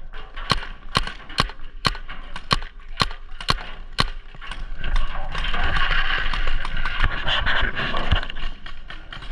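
Paintball marker firing a string of single shots, about two a second for around four seconds, after game over has been called; the shots give way to a steady rustling wash.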